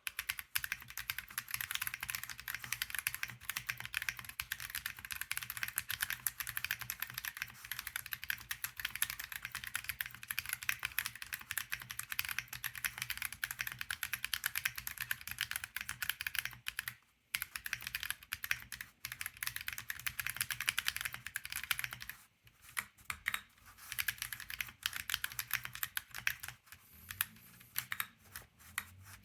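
Fast typing on a JRIS65 65% mechanical keyboard with stock Tecsee Corsa 60 g medium-tactile switches, a POM plate, lubed TX stabilizers and PBT keycaps, built with minimal foam for the loudest sound. A dense, rapid run of keystroke clicks breaks off briefly about 17 and 22 seconds in, and the strokes come more sparsely near the end.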